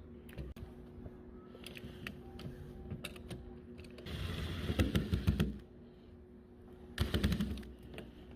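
Door-handle hardware being fitted: small metallic clicks and rattles, with a dense run of rapid clicking about four seconds in and a shorter one near the end.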